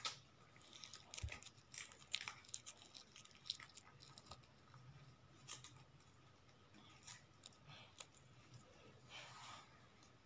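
Stainless steel balloon whisk beating a still-runny dalgona coffee mix (instant coffee, sugar and hot water) in a bowl by hand: faint, irregular wet clicks and taps of the wires against the bowl.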